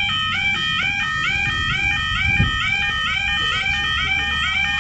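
Level crossing warning alarms sounding steadily: several electronic yodel alarms out of step with each other, each a rising warble repeating about three times a second, over a low rumble, with a brief low thump about halfway through.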